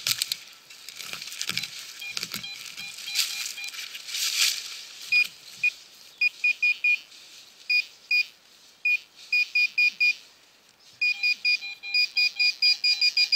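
A digging knife scraping through soil and dry leaves, then a handheld metal-detecting pinpointer probing the hole, giving quick runs of short high beeps from about five seconds in that show metal close by, with a short break near the end before the beeping resumes.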